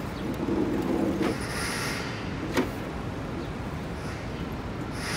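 Steady city traffic noise with a passing vehicle, and a single sharp click about two and a half seconds in.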